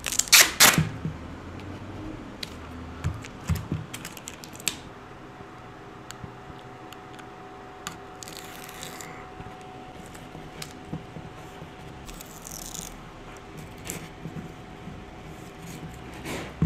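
Small wooden pieces and a glue bottle being handled on a workbench: scattered light clicks and knocks of wood against wood and the table top, loudest in a quick cluster at the very start, with a couple of brief rustles later on.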